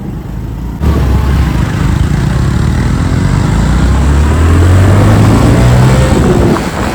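Motorbike engine running under acceleration, its pitch rising slowly over several seconds, with a dense rushing noise over it.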